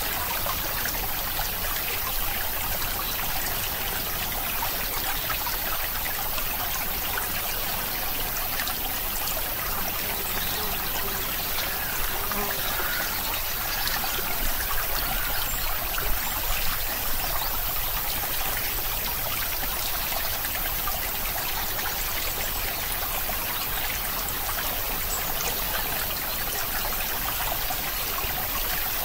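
Steady, even rushing noise like a trickling stream, unbroken throughout.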